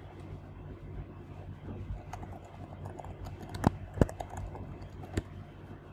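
Typing on a computer keyboard: scattered light key clicks, with a few sharper clicks between about three and a half and five seconds in, over a steady low hum.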